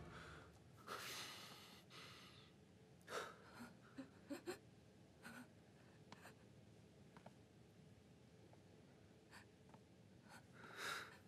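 Near silence: quiet room tone broken by a few soft breaths and a handful of faint small clicks.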